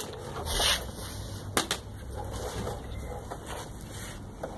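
Two sharp knocks close together: a plastic water bottle hitting the concrete patio. A short hiss comes just before them.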